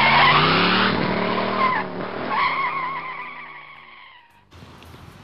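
Race-car sound effect: an engine revving with tyres squealing, loudest at the start and fading away about four and a half seconds in.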